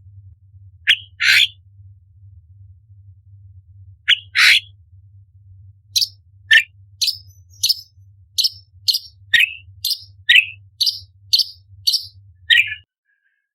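Orange-bellied leafbird singing: a few sharp, separate notes, then, from about halfway, a quick run of short notes about two a second, alternating between higher and lower pitches. A faint low steady hum runs underneath and cuts off shortly before the end.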